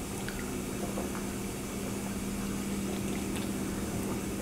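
Dishwasher running in the background, a steady low hum.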